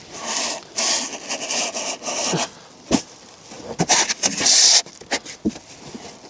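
Plastic wrapping and cardboard packaging rustling and crinkling in bursts as parts are lifted out of a box, with a few sharp clicks and knocks.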